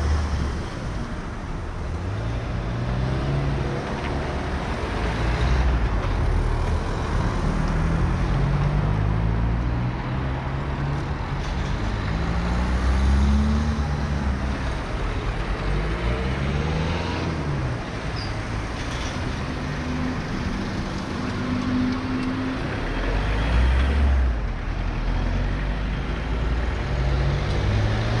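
Passing cars and a light van driving through a roundabout over a continuous traffic rumble. Their engine notes rise and fall in pitch one after another as each vehicle slows, turns and pulls away.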